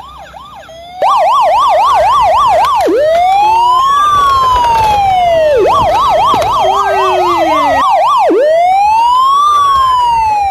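Electronic siren from a battery-powered toy fire truck's speaker, starting suddenly about a second in and switching between a fast warble and a slow rising-and-falling wail, twice each. A second toy siren overlaps it at a higher pitch.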